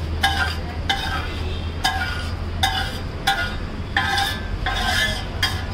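Steel spatula scraping and striking a large flat iron tawa, giving a string of ringing metallic clinks, a little under two a second and irregular, as finished pav bhaji is scraped together off the griddle for serving.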